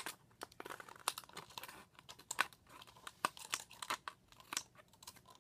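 Scissors snipping through a thin plastic water bottle, the plastic crinkling and crackling as it is cut and turned in the hand; an irregular run of sharp snips, several a second.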